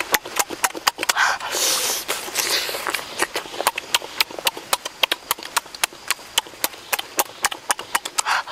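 Person eating grilled pork rib with loud lip-smacking chewing: sharp wet mouth clicks several times a second, with a couple of breathy slurping stretches.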